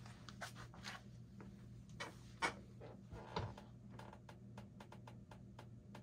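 A 1998 52-inch Hunter Sea Air ceiling fan running at medium speed: a low, steady motor hum with light clicks and ticks, a few louder ones in the first half. There is a faint bearing hiss, which the owner takes as a sign of slightly dry bearings.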